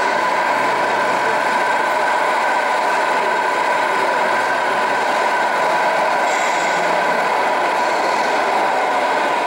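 Steady engine-like running sound with a constant whine, holding level throughout.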